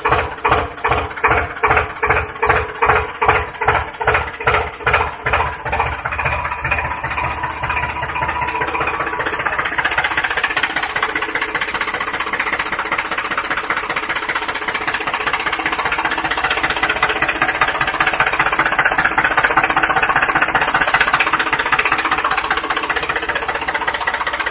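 Tractor engine chugging at about two beats a second, then running faster and steadier from about seven seconds in.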